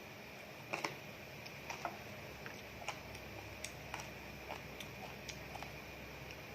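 A dozen or so light, irregular clicks and taps from someone eating, the loudest a quick pair about a second in.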